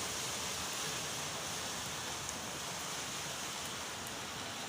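Steady hiss of rain and running floodwater.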